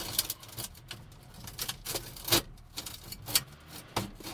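Sharp clicks and knocks of hard plastic and metal dash parts being handled, four of them spread out, with light rattling between. The car stereo is being worked loose from a 1984 Chevy K10's dash.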